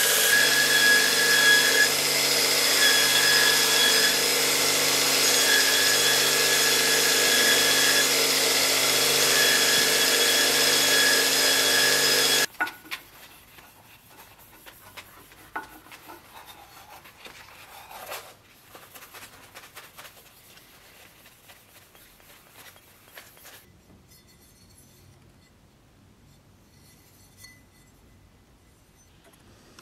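Belt grinder running steadily while a small steel piece is ground on the belt over the contact wheel; the sound stops abruptly about twelve seconds in, leaving only faint rubbing and handling noises.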